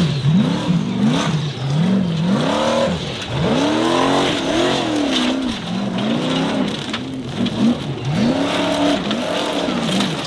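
Formula offroad buggy's engine revving hard as it claws up a steep dirt slope, its pitch swinging up and down about once a second as the throttle is worked and the wheels spin in the loose ground.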